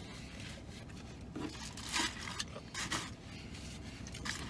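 Paper food packaging rustling and tearing as it is handled, in several short bursts around the middle.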